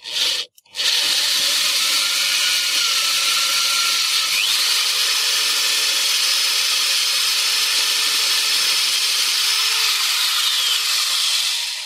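Power drill turning a titanium-coated HSS step drill bit through a thin metal panel, cutting with a steady grinding noise and a shifting whine. A brief first burst, then continuous drilling that stops abruptly near the end.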